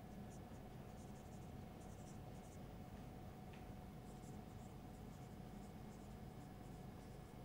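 Dry-erase marker writing on a whiteboard: faint, short scratchy strokes in quick clusters as letters are formed, over a steady low room hum.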